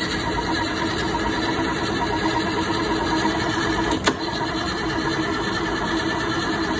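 Chevrolet 454 big-block V8 marine engine cranking over on its starter motor, with a spark plug out and a compression gauge screwed into the cylinder: a steady starter whine and churn as pressure builds on the gauge. A sharp click comes about four seconds in.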